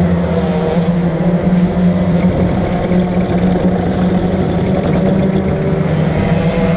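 Kart engine idling steadily: a constant even drone with no revving.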